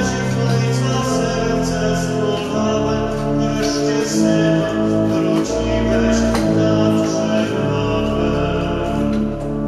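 A man singing to his own organ accompaniment, the organ holding sustained chords that change every second or so.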